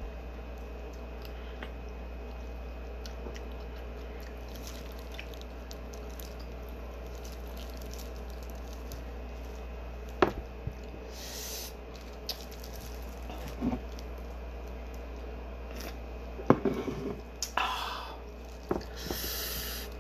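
Wet eating sounds of a seafood boil: a clam being pulled apart and chewed with squishing, with a few sharp clicks and short hissing noises in the second half, over a steady low hum.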